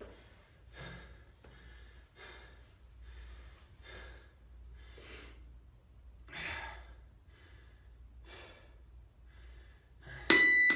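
A man breathing hard, in and out about once a second, catching his breath after a set of jumps. Near the end an interval timer beeps twice, loud and clear, signalling the start of the next round.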